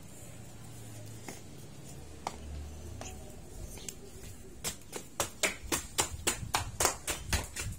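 A quick, even run of sharp slaps, about three or four a second, starting a little over halfway through after a few scattered clicks.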